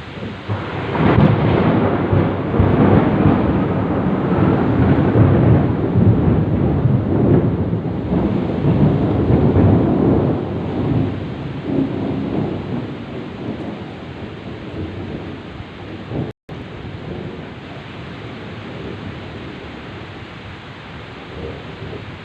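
Heavy rain falling steadily while a long rolling peal of thunder swells up about a second in, rumbles for around ten seconds and slowly dies away. The sound cuts out for an instant near the end.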